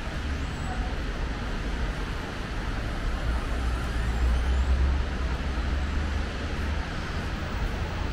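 City street traffic: a steady low rumble with a hiss of tyres, swelling around four to five seconds in as a vehicle goes past.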